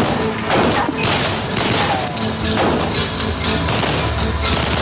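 A gunfight: irregular gunshots, one every half second to a second or so, over dramatic background music.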